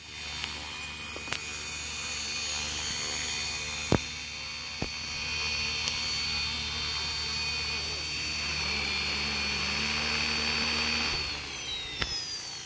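Flywing FW450 electric RC helicopter hovering low and setting down, its rotor and motor giving a steady whirring hum, with a sharp click about four seconds in. About eleven seconds in the pitch slides down and the sound falls away as the rotor spools down after landing.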